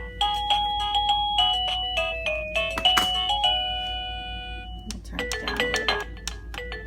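Wireless doorbell receiver playing its electronic chime tunes, a series of quick melodic notes. The first tune ends in a held note that fades out, and the next tune starts about five seconds in.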